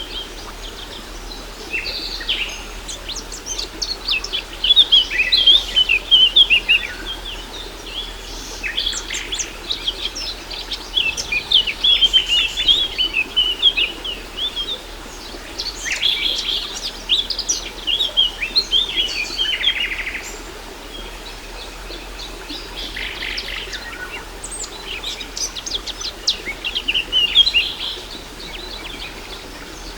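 Songbirds chirping and singing in busy, rapid phrases that come in clusters with short lulls, over a faint steady rush of falling water.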